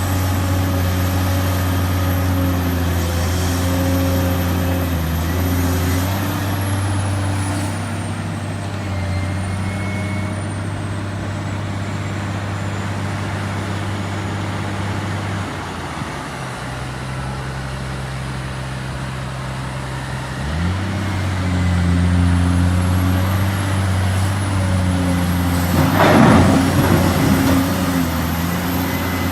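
Heavy diesel machinery of excavators and dump trucks working in a quarry: a steady, deep engine drone whose pitch drops a little past halfway and climbs back a few seconds later as the load changes. Near the end a loud, noisy rushing burst rises above the engines.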